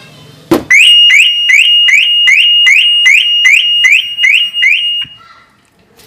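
A single sharp knock on the car's body, then the 2018 Maruti Suzuki WagonR's factory anti-theft alarm goes off in loud, quick rising chirps, about three a second, for about four seconds before cutting off. The tap has set off the armed alarm.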